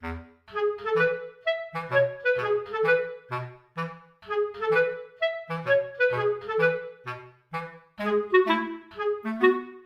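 Bouncy background music of short, detached notes, about two to three a second, over a bass line.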